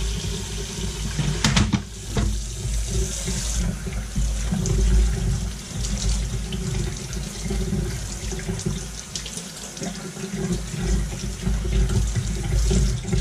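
Cold water running from a kitchen faucet and splashing over raw chicken halves into a stainless steel sink as they are rinsed. A couple of sharp knocks about a second and a half in.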